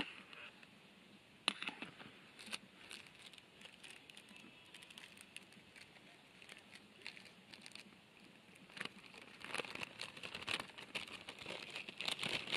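A few sharp clicks of chopsticks against a metal camping pot, then the faint crinkling and tearing of a small plastic packet being opened by hand, busiest near the end.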